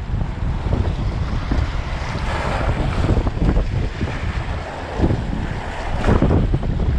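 Strong wind buffeting the microphone, with small waves washing and splashing against the rocks.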